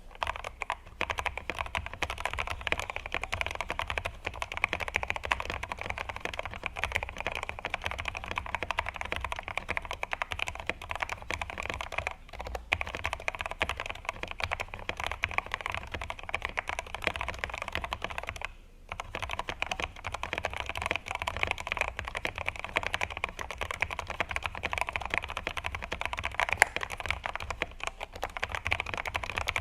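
Steady fast typing on a Woye WL61 mechanical keyboard, fitted with lubed Outemu Black linear switches, lubed stabilisers, and PE foam and case foam mods. It is a dense run of keystrokes with two brief pauses, about 12 and 19 seconds in.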